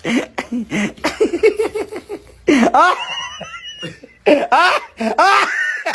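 People laughing hard in rapid, short bursts, broken by several high, squeaky cries that rise and fall in pitch, once about halfway through and a few more times near the end.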